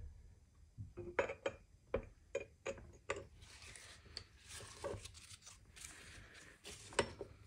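Light metallic clicks and clinks of metal automatic-transmission parts being handled during reassembly: a quick run of about eight clicks in the first few seconds, a soft rustle, then one more click near the end.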